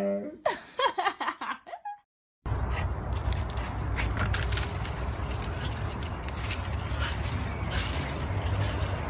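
A husky's howl breaking into short gliding yelps that fade out over about two seconds, then a brief silence. After that, a steady outdoor noise with a low rumble and scattered rustles and cracks from the leafy branch a dog is hanging from.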